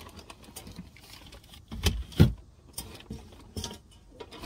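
Rummaging and handling noise: rustling with scattered clicks and knocks, and two loud thumps close together about two seconds in.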